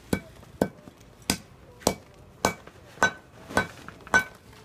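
Hand hammer striking a small steel block in a steady rhythm, eight blows at about two a second, each with a short metallic ring.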